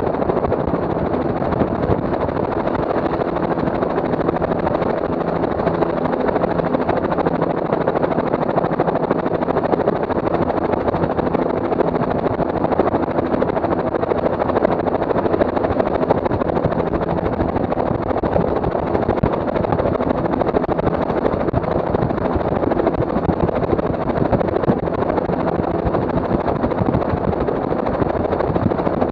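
Helicopter in steady low flight, heard from on board: an unbroken drone of rotor and engine with a steady low hum.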